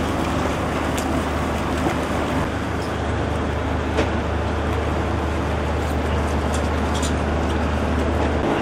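A boat engine running steadily at the pier, a constant low rumble under an even wash of noise.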